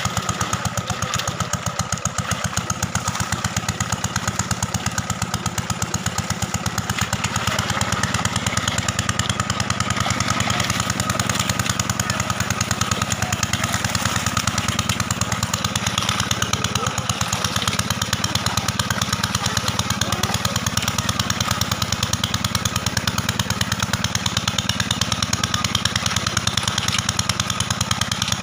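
A small engine-driven water pump running steadily with a fast, even chugging beat.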